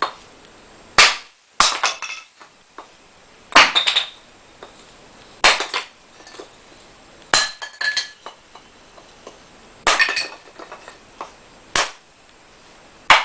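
Small freshly sharpened axe chopping into wood set on a wooden base: about seven sharp knocks, one every second or two, some with a brief metallic ring.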